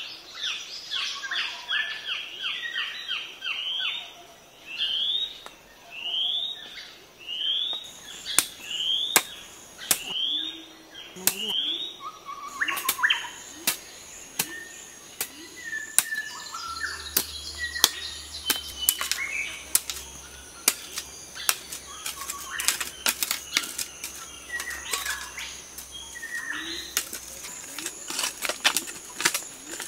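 A bird calls a run of short rising whistled notes, about one a second, through the first several seconds. From about eight seconds in, a hoe blade strikes the earth again and again in sharp knocks, with birds still calling now and then.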